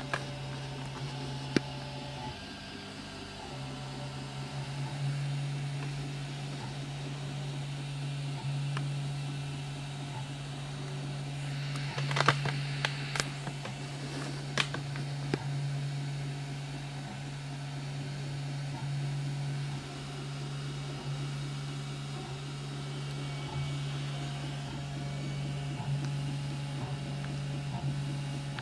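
Home-built CoreXY 3D printer running a print: a steady low hum from its fans, with the whir of the stepper motors driving the print head and extruder. A few sharp clicks come about twelve to fifteen seconds in.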